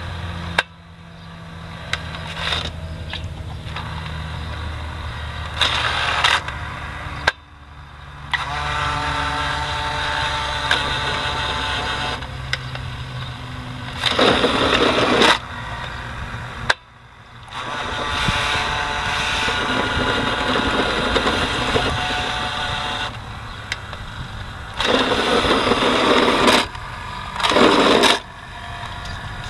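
Radio-controlled toy semi truck's small electric drive motor and gears whining in runs of several seconds as it drives over concrete, stopping and starting again. A steady low hum lies beneath, and a few short, louder bursts of rushing noise come partway through and near the end.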